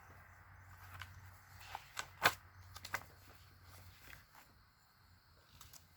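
Faint rustling and a few light clicks from a picture book being opened and its pages handled, the sharpest click about two seconds in.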